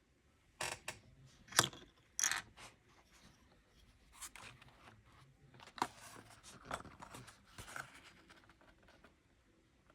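Small LEGO minifigure pieces being handled and fitted together: scattered plastic clicks and short scraping rustles at irregular intervals, the sharpest click about one and a half seconds in.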